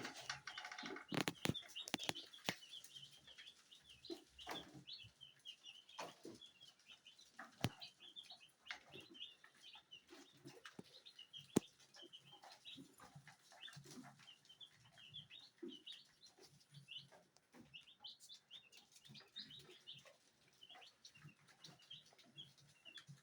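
A group of young chicks peeping without a break: many short, high cheeps overlapping, with scattered sharp taps and knocks.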